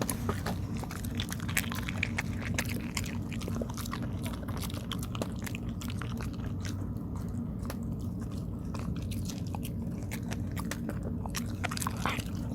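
A dog chewing and biting sticky rice cake (tteok), with quick wet clicks and smacks, busy in the first few seconds, sparser in the middle and picking up again near the end, over a steady low hum.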